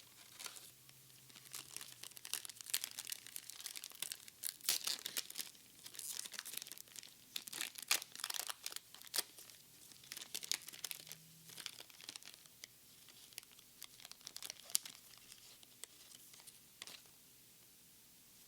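A foil trading-card booster pack being torn open, its wrapper crinkling and crackling in a rapid, uneven run that stops shortly before the end.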